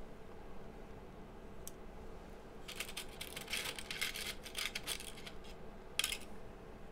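Fingers rummaging through loose diodes in a plastic parts tray, a cluster of light rattles and clicks from about three to five seconds in, with one sharper click near the end, over the steady hum of a space heater fan.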